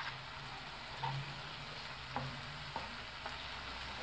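Chopped garlic and red onion sizzling in butter in a frying pan, with a few light scrapes and taps of a metal spoon stirring them against the pan.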